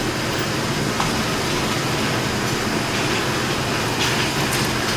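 A steady rushing, rumbling noise with no gunshots.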